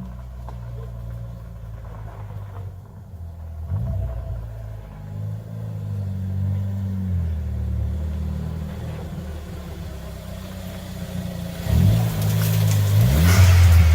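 A car's engine running at low revs, with the revs rising briefly about four seconds in and again near the end, where it is loudest.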